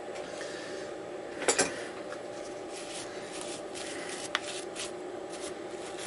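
A brush sweeping aluminium chips and cutting fluid off a plate clamped in a mini mill vise, as a run of short strokes in the second half, over a steady machine hum. A double knock comes about one and a half seconds in, and a sharp click a little after four seconds.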